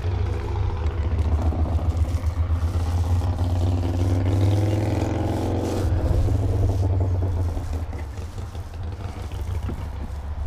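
A motor engine running steadily, its pitch rising for a couple of seconds around the middle before dropping back.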